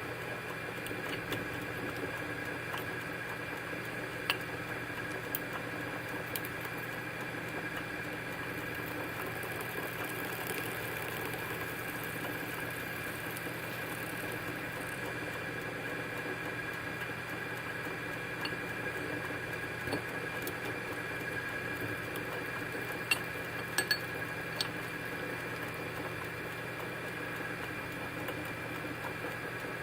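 A steady background hum with a few faint pitched tones, broken by a handful of light clicks and taps, about four in the first third and a small cluster in the last third.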